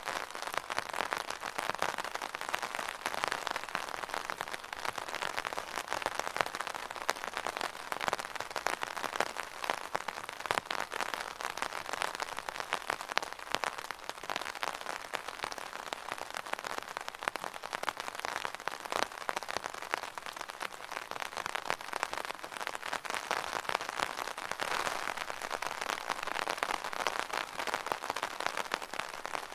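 Rain pattering on an umbrella's canopy, a dense, steady patter of many small drop hits.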